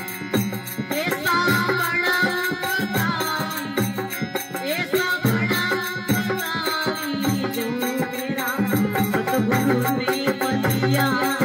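A male voice sings a Rajasthani devotional bhajan, accompanied by a harmonium's steady reed chords and a regular percussion beat.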